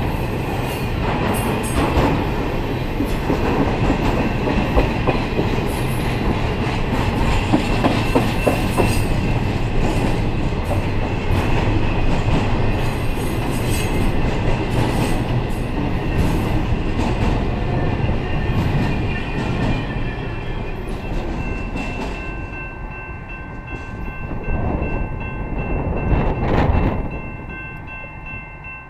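Intermodal freight train of truck trailers on flatcars passing close by: steady wheel-on-rail noise. A thin, steady high ringing comes in over the last several seconds. A last loud swell follows, then the sound fades as the end of the train goes by.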